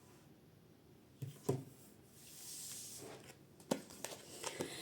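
Tarot cards being handled on a table: a few light clicks and taps, with a soft papery swish of a card being slid from the deck about two seconds in.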